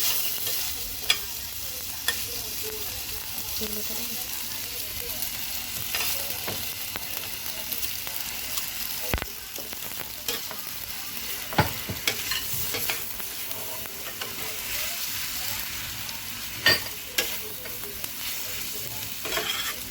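Spaghetti with pork and vegetables sizzling in hot oil in a non-stick pan as it is stir-fried. A cooking utensil clicks and scrapes against the pan now and then.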